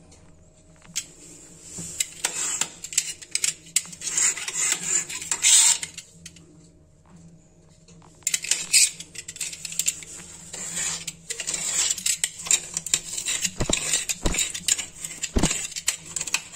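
Utility-knife blade scraping old silicone sealant off the joint between a ceramic toilet and the tiles: quick scratching strokes and clicks of the blade on the ceramic, with a pause partway through. A couple of duller knocks come near the end.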